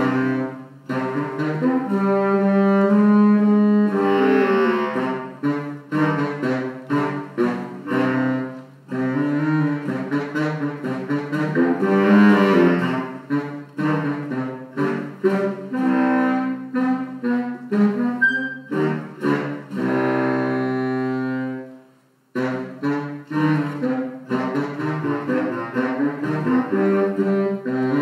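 A small ensemble of instrumentalists playing a composed concert piece: runs of short, detached notes alternate with held chords. About three-quarters of the way through, a held chord fades into a brief silence before the playing starts again.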